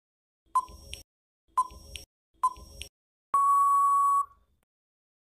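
Quiz countdown timer sound effect: a short ticking beep about once a second, three times, then one steady beep lasting about a second as the time runs out.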